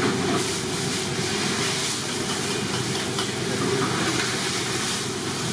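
Large idli steamer on its gas burner hissing steadily.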